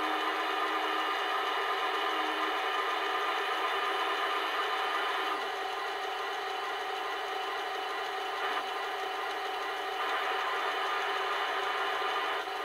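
A Heng Long 1:16 RC Panther tank's electronic sound unit playing a steady simulated engine idle through its small onboard speaker. The turret's electric traverse drive whirs as the turret turns.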